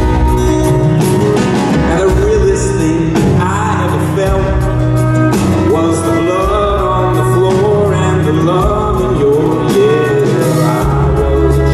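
Live band music: a man singing over acoustic guitars and drums.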